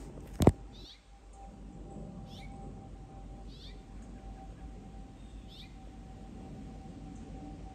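A songbird giving short, sharp, high calls that sweep downward, repeated every second or two: the alarm calls of a parent bird guarding its young's area. A loud sharp click sounds once about half a second in, over a faint steady hum.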